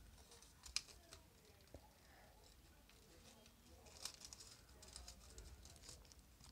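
Faint rustling and crinkling of folded origami paper units being pushed and slotted into one another by hand. There is a sharper paper crackle just under a second in, and more crinkling from about four to six seconds.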